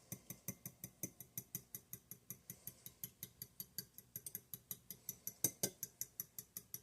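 Eggs being beaten in a bowl, the utensil clicking against the bowl about five times a second, with one louder knock about five and a half seconds in.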